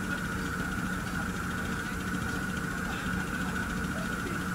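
Engine of a miniature railway locomotive idling steadily: a constant low hum with an even higher-pitched hiss over it.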